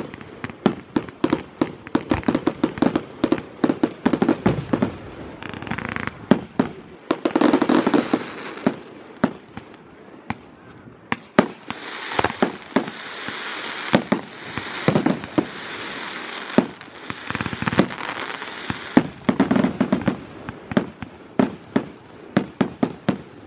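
Fireworks display: aerial shells bursting in a rapid, irregular run of sharp bangs, many close together. Some stretches are filled with a continuous hiss between the bangs.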